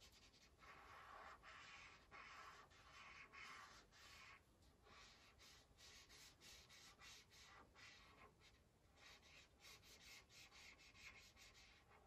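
Faint scratchy strokes of a felt-tip marker colouring in on paper, quick back-and-forth scribbles several a second, with a couple of short pauses.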